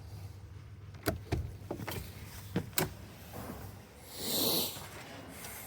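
Newly fitted push-button combination lock and its latch being worked: a string of sharp clicks and clacks, five or so within two seconds, followed about four seconds in by a brief rushing hiss.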